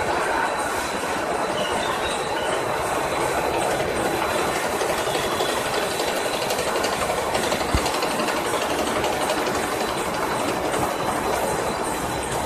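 Corn-puff snack production line machinery running: a steady mechanical noise with a faint regular rattle and a thin, steady high whine. One short low thump comes about two-thirds of the way through.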